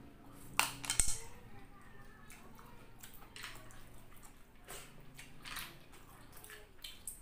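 A person sucking cooked snails out of their shells with short, sharp wet slurps, the loudest pair about a second in, followed by a few quieter sucks and mouth sounds.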